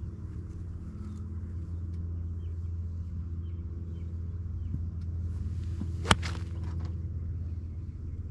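Golf club striking a ball off the turf: one sharp crack about six seconds in, over a steady low rumble.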